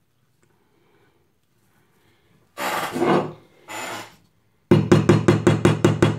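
Scratching of a screw's point against a revolver's front sight blade, marking the spot to be drilled. Two short scrapes come a little past halfway, then a quick, loud run of strokes at about seven a second near the end.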